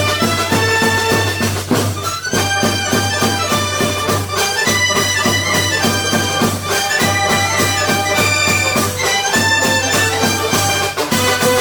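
Upbeat background music with a quick steady beat, a steady bass and a bright melody.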